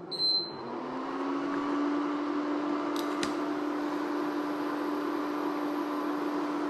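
Induction cooktop being switched on. Its control panel gives a short high beep, then the cooling fan spins up within about a second to a steady hum with a low tone that rises slightly and settles. Two light clicks come about three seconds in.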